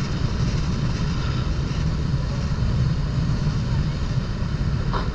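Motorboat running: a steady low rumble with an even hiss of wind and water.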